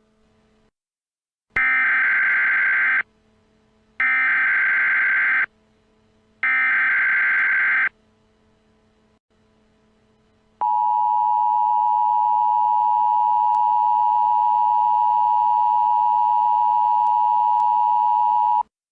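Emergency Alert System tones: three short screeching bursts of SAME header data, each about a second and a half, then the two-tone EAS attention signal (853 and 960 Hz), a steady harsh tone held for about eight seconds that cuts off suddenly near the end.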